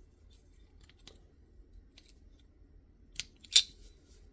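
Small metal clicks of a Glock armorer's front sight tool working a front sight and its screw as the sight is seated: a few faint ticks, then two sharper clicks a little after three seconds in.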